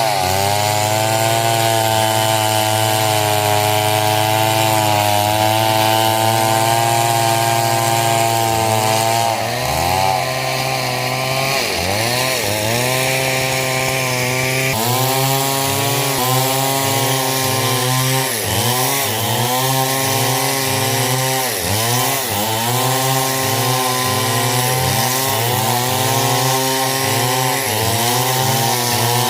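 Stihl chainsaw cutting hardwood coconut wood at high revs. For the first nine seconds its note holds steady; from about ten seconds in the engine pitch dips and recovers over and over, roughly every second and a half.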